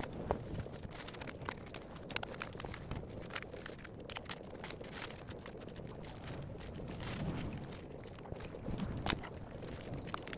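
Flat-pack standing desk parts being unpacked and handled: scattered light clicks and knocks of the metal frame pieces and packaging, with a few sharper knocks.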